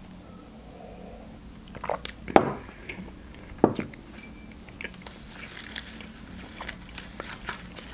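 Close-miked mouth sounds of eating and drinking. A few louder sudden sounds come about two and three and a half seconds in, followed by soft wet chewing clicks.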